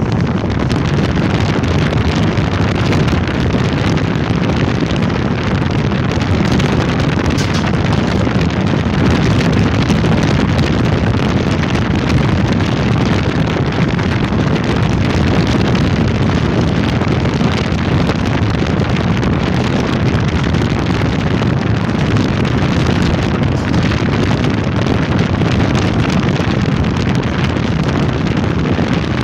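Wind buffeting the microphone over the steady rumble of a passenger train running at speed.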